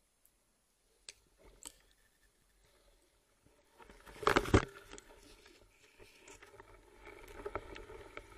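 Water sloshing and splashing around a spearfisher moving through a reed bed: a few faint knocks, then a loud surge of sloshing about four seconds in that carries on more quietly after it.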